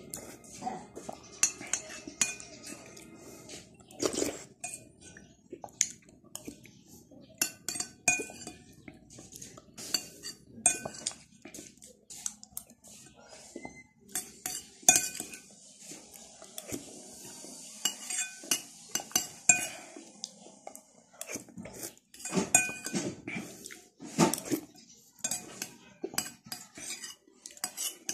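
Metal spoon clinking and scraping against a dish while eating, many short sharp clinks at irregular intervals, some ringing briefly.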